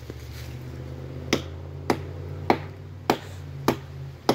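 Hatchet chopping into a small tree trunk: six sharp strikes at a steady pace, about one every 0.6 seconds, starting about a second in.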